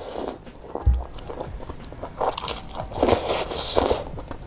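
A mouthful of bakmi godog, boiled egg noodles in broth, slurped and chewed close to the microphone. The wet slurping is loudest about three seconds in, and there is a dull low thump about a second in.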